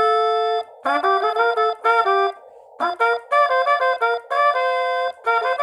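A trumpet plays a short tune in phrases: a held note at the start, then runs of quick notes with brief breaks between phrases. It is being played into a voice-operated Morse keyer, so each note keys Morse code.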